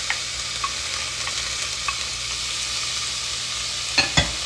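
Chopped onions, green onions and bell pepper sizzling as they sauté in hot stir-fry oil in a pot: a steady hiss with small crackles. Two sharp knocks sound about four seconds in.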